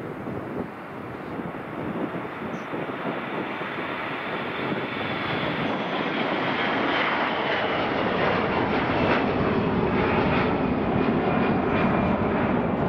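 Lockheed C-130 Hercules taking off, its four turboprop engines at full power and growing steadily louder as it comes nearer, with a faint high whine over the noise.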